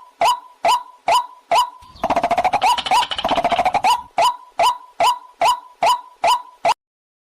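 Recorded waterhen calls used as a hunting lure: a string of sharp, repeated calls at about two a second. About two seconds in they give way to two seconds of fast chattering, then the repeated calls resume and the recording cuts off suddenly near the end.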